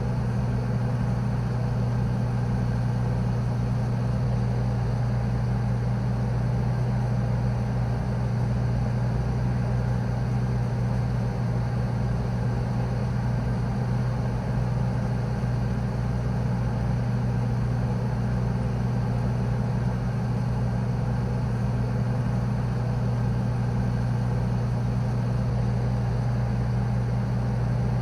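Morgue freezer humming: a low, continuous hum that holds steady, with a strong deep tone, fainter higher tones above it and a light hiss.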